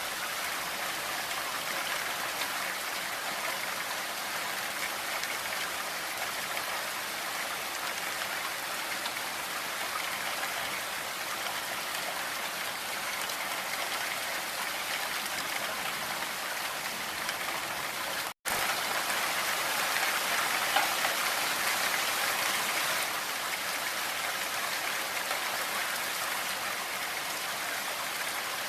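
Blizzard wind blowing steadily through a forest, a continuous hiss of wind and driven snow. About two-thirds of the way through it drops out for an instant, then comes back slightly louder for a few seconds.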